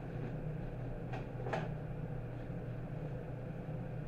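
Two brief rustling handling noises a little over a second in, from packing mushrooms into a cardboard box, over a steady low hum.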